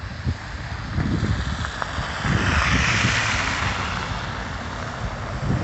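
Wind buffeting the microphone, with a vehicle's tyres hissing past on the slushy road close by, swelling and fading about two to four seconds in.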